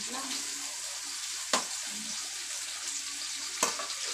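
Sliced onions and tomatoes sizzling steadily in a hot wok, with two sharp knocks on the pan, one about a second and a half in and one near the end.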